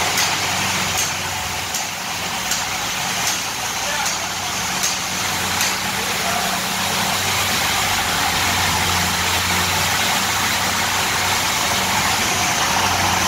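Forklift engine idling steadily with a broad hiss over a low hum. A faint regular tick comes about every three-quarters of a second during the first half.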